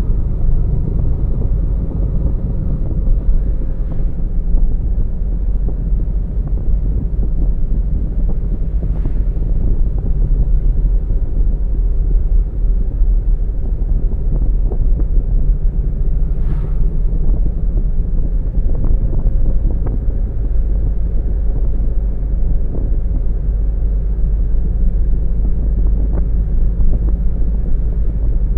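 A car driving along a road: a steady low rumble of road, tyre and wind noise, with a few faint brief sounds standing out about 4, 9 and 16 seconds in.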